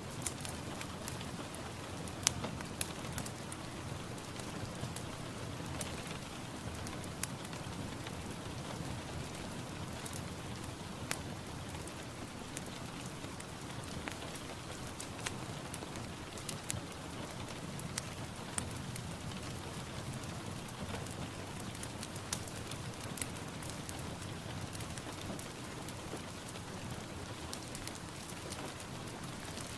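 Steady rain falling, an even hiss dotted with frequent sharp ticks of single drops landing close by.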